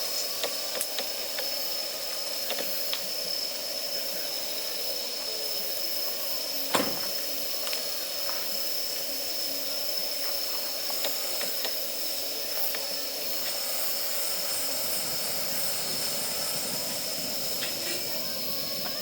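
Campfire of damp firewood burning: a steady hiss with scattered crackles and one sharp pop about seven seconds in.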